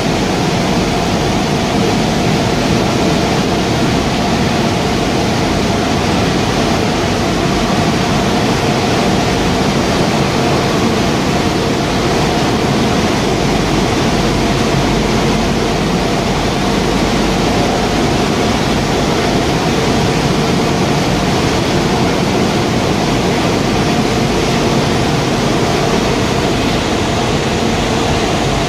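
Machinery of a waste-tyre rubber powder production line running steadily: a loud, unbroken industrial noise with a couple of steady hum tones in it.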